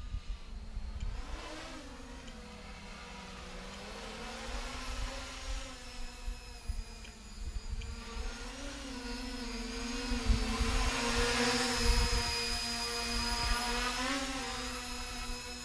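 Mini tricopter's brushless motors and propellers whining in flight, the pitch wavering up and down with the throttle. It grows louder about ten to twelve seconds in, then eases off.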